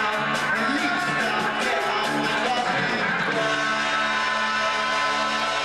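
Live rock band playing with vocals. About halfway through, the drumming drops out and the band holds a sustained chord.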